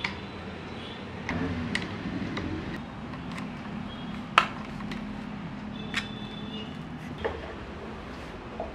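Wooden rocking-horse parts being handled and screwed together by hand with a screwdriver: scattered knocks and clicks of wood and metal, with a rougher scraping stretch early on and one sharp knock about halfway through.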